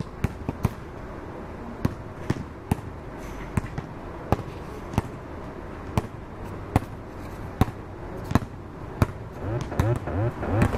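A basketball bouncing on a hard outdoor court, with sharp, irregular bounces about one to two a second over steady background noise.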